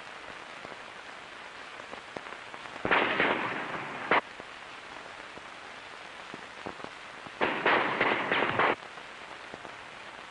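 Steady hiss of an old film soundtrack, broken twice by loud bursts of crackling noise about a second long each. The first comes about three seconds in and ends in a sharp crack. The second, near eight seconds, is several quick cracks in a row.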